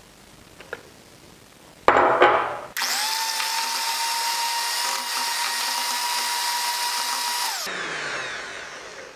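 Handheld electric mixer beating an egg into creamed cream cheese in a glass bowl: a louder burst as it starts about two seconds in, then a steady motor whine for about five seconds, switched off and spinning down near the end.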